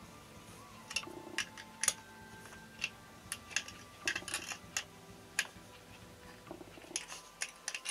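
Scattered sharp metallic clicks and taps at irregular intervals: a hex key working the bolts that hold a small four-stroke outboard motor's engine to its shaft housing.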